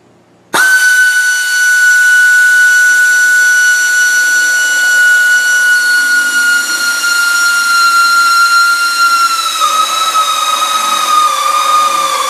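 A 90-degree drill spins up suddenly about half a second in and runs at a steady high whine, drilling holes through the rocker-panel pinch weld with a step bit. From about nine seconds in the pitch drops and wavers as the bit loads up in the sheet metal.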